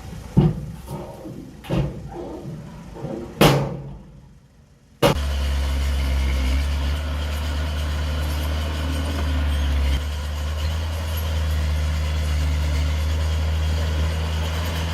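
A few sharp knocks in the first few seconds, then the steady, low, even drone of a heavy-equipment diesel engine running, which cuts in suddenly about five seconds in.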